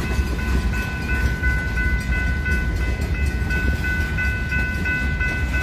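Mechanical grade-crossing bell ringing steadily over the low rumble of freight cars rolling past the crossing.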